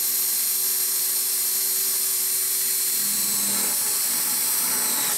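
Cordless drill running with a steady whine as its bit drills through the thin web of aluminum, about 20 to 30 thou, left at the bottom of a pocketed hole in an aluminum plate.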